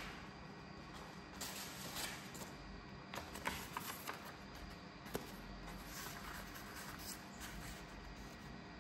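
A sheet of paper being handled and folded: irregular rustling and crinkling.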